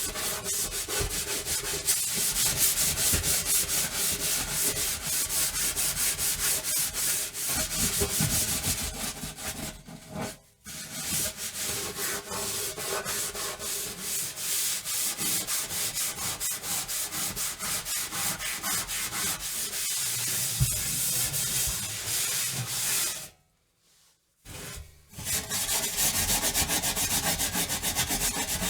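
Scrubbing an oven: fast, even back-and-forth scrubbing strokes. They stop briefly about ten seconds in and again for over a second near the end.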